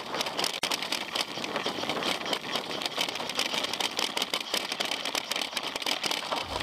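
Mountain bike rolling over a rough trail: tyre noise on gravel and stones, with frequent rattles and clicks from the bike.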